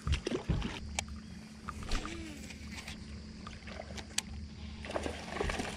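Steady low hum from the bass boat, with a few sharp clicks and taps as a fishing rod is picked up and a baitcasting reel is cast and worked.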